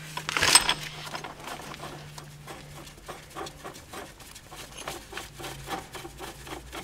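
Metal parts of a wheel-bearing hub press tool being fitted by hand onto the hub and knuckle: a sharp metal clink about half a second in, then a run of light, fairly regular clicks and small scrapes.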